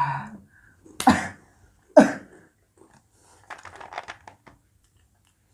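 Two short, loud throat sounds about a second apart from boys gulping fizzy Sprite, then about a second of crackly slurping as Sprite is sucked through a drinking straw.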